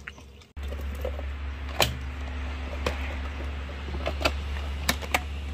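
Countertop blender switched on about half a second in, its motor running steadily as it chops chunks of starfruit in water, with a few sharp knocks against the jar.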